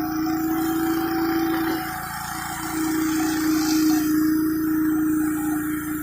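Gas-engine pressure washer running steadily while high-pressure water sprays, with a strong steady whine that briefly drops out about two seconds in before coming back.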